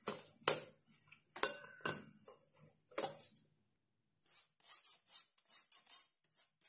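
A steel spoon working flour through a stainless-steel mesh sieve: a few sharp metal clinks against the sieve, then about halfway through a steady rasping scrape of the spoon over the mesh, about three strokes a second.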